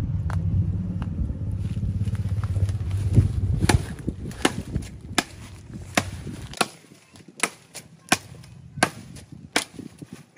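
A long-bladed knife with a wooden handle chopping into a dry wooden stick, about nine sharp strikes at a steady pace of a little more than one a second. A low drone underlies the first few seconds and fades out.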